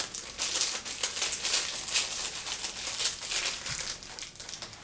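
Plastic wrapper crinkling in the hands as it is worked off a small stick of sealing wax; the crackle thins out near the end.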